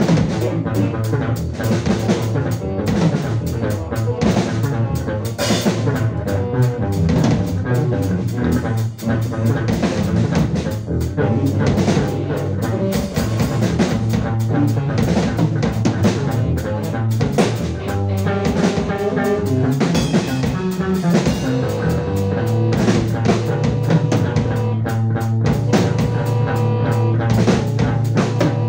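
Live band music from drum kit, bass guitar with effects and modular synthesizer: busy, dense drumming with rimshots and bass drum over a held low bass drone, with steady higher tones joining in past the middle.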